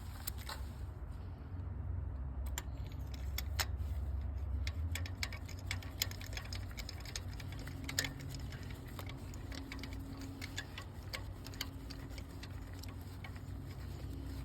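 Irregular small metallic clicks and ticks of a spark plug socket and tools as new spark plugs are threaded in by hand, over a steady low hum.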